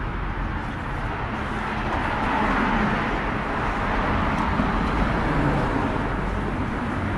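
Road traffic on a busy high street: a steady rush of passing cars, swelling in the middle as a vehicle goes by close.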